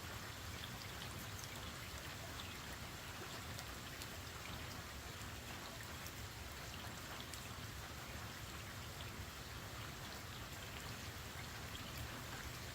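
Steady rain falling, with many individual drops ticking here and there against the constant hiss.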